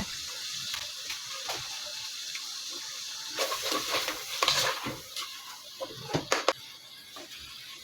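Onion-tomato masala with mustard seeds frying in oil in a pan, giving a steady sizzle. From about halfway through, a spoon scrapes and clinks against the pan several times as it is stirred.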